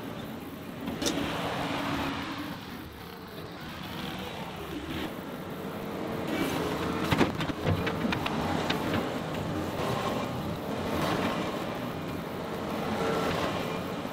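John Deere 325G compact track loader working a pile of topsoil, its diesel engine swelling and easing as it drives forward and backs off. A cluster of sharp clanks comes about seven seconds in, as the bucket is raised and tipped.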